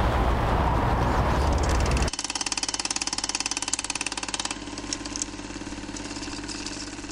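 Outdoor wind and traffic noise on the microphone. About two seconds in it cuts abruptly to an electronic logo sting: a fast buzzing pulse over steady tones, which thins out and fades toward the end.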